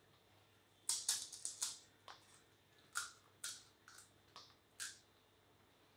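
Crisp, hollow pani puri shells cracking and crunching: a quick cluster of short, sharp crackles about a second in, then scattered single ones for a few seconds.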